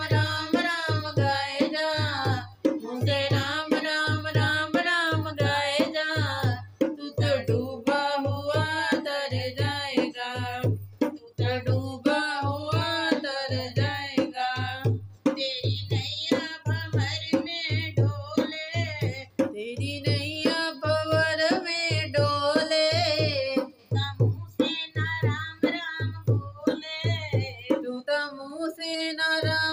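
A woman singing a Hindi devotional bhajan to her own dholak, which keeps a steady beat of low strokes about twice a second under the voice. The voice wavers in pitch.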